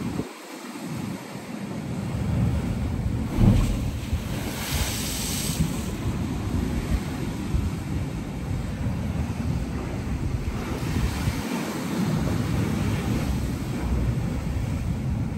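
Wind buffeting the microphone in an uneven low rumble, over the steady wash of sea surf on shore rocks. A hissing surge of water swells up about five seconds in.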